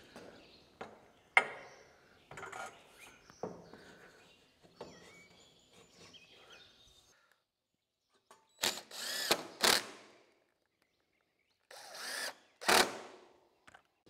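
Cordless drill running in two short bursts of a second or two each in the second half, its motor whine rising and falling as it drives screws to fasten metal conduit rafters to a wooden frame. Before that come scattered knocks and clanks of the conduit and clamps being handled.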